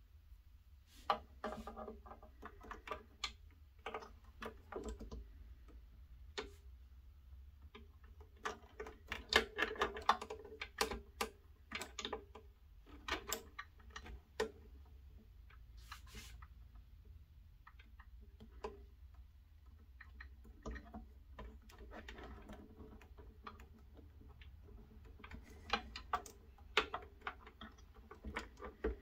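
Hands handling small hydraulic hoses and metal fittings at the boom pivot of a scale-model hydraulic excavator: irregular light clicks and taps, busiest in the middle and again near the end, over a low steady hum.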